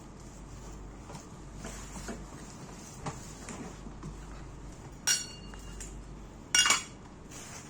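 Small metal parts being handled, with light knocks and then two sharp metallic clinks about a second and a half apart, the first leaving a brief ringing tone.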